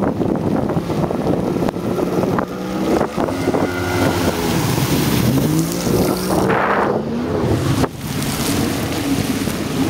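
Jet ski engine running and revving, its pitch rising and falling repeatedly, over a steady rush of wind on the microphone and water.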